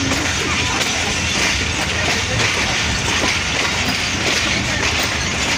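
Subak Raftar Express railcar running on the track: a steady, loud rumble and rail noise.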